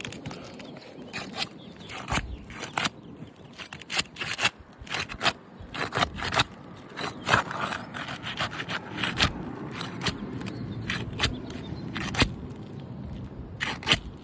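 A metal snake tool prying and scraping under asphalt shingles to break their seal strips, with many irregular sharp clicks and snaps. The shingles are brittle and tightly bonded.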